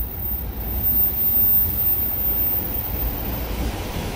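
Steady low rumble with a fainter even hiss above it, with no sharp knocks or tones.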